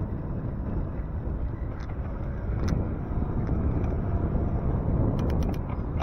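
Steady low rumble of wind and road noise, with a quick run of light clicks about five seconds in.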